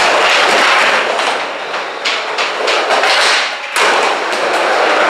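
Skateboard riding an indoor mini ramp: wheels rolling on the ramp under a run of knocks and taps from the board, with one sharp knock a little before four seconds in.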